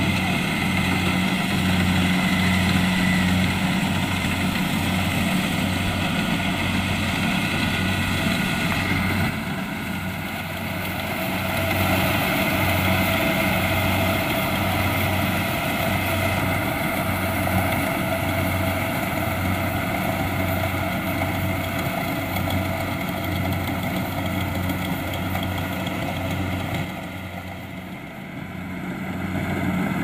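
Kubota DC-70 Plus combine harvester running steadily while harvesting rice: its diesel engine and threshing gear make a continuous drone with a regular low throb. The sound dips quieter briefly around ten seconds in and again near the end.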